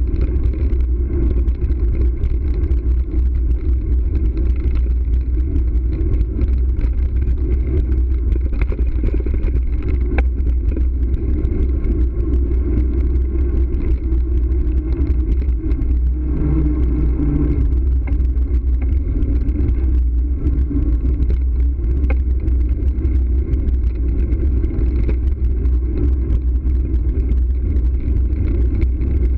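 Steady rumble of a bicycle ride: tyres rolling over brick pavers, with wind rumbling on the camera's microphone.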